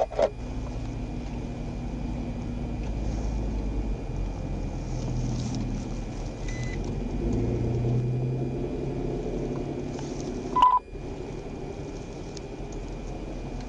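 Idling vehicle engines, a steady low rumble whose pitch shifts a little in the middle, with a short electronic beep about ten and a half seconds in.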